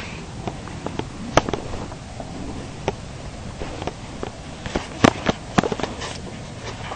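Steady outdoor background rumble broken by scattered sharp pops and clicks, the loudest about a second and a half in and twice around five seconds in.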